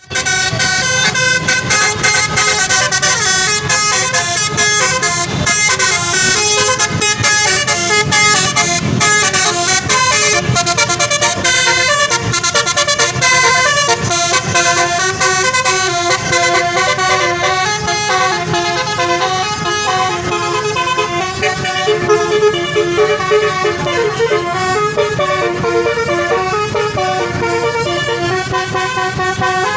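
A bus's basuri telolet horn, a multi-tone musical horn, playing a continuous tune of stepped notes.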